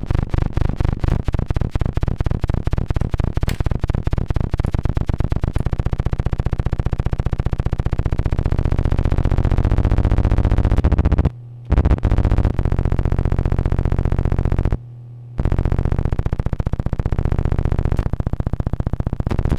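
Harsh electronic buzz from an oscilloscope light-feedback loop: a Lite2Sound BC photodiode board reading a Tektronix 2225 CRT screen, its amplified output fed back into the scope. It starts as a fast train of pulses, thickens into a dense steady buzz about halfway through, and cuts out twice briefly, near the middle and a few seconds later, changing as the scope's controls are turned.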